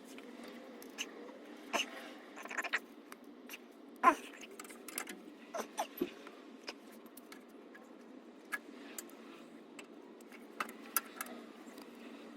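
Scattered metallic clicks and clinks of hand tools working loose an exhaust hanger under a truck, with one louder knock about four seconds in.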